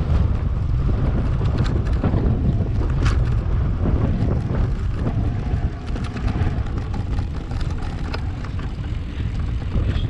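Wind buffeting the microphone of a camera on a moving electric mountain bike: a steady heavy rumble with scattered small clicks and rattles from the ride.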